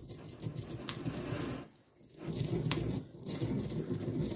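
Stone pestle grinding toasted cumin seeds, coriander seeds and black peppercorns in a stone mortar: a steady gritty crunching and scraping, with a brief pause about two seconds in.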